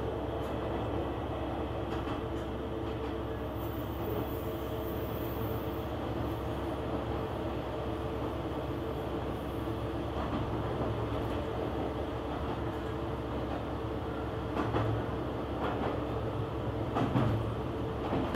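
KiHa 120 diesel railcar running along the line, heard from inside the car: a steady engine and running drone with a constant hum. Two short knocks come near the end, the second one louder.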